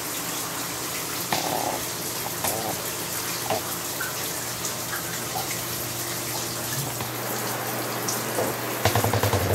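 Shower running: a steady hiss of falling water, with a low steady hum underneath. A few light knocks, and a brief rapid rattle near the end that is the loudest moment.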